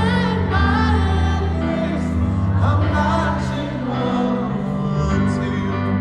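Live ballad performance: a male singer's voice over long, held low chords, with no drum beat.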